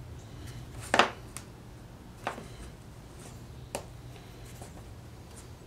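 Small pine drawer pieces knocking against each other and the wooden workbench as they are handled and pressed together: a sharp knock about a second in, then a few softer knocks and ticks, over a low steady hum.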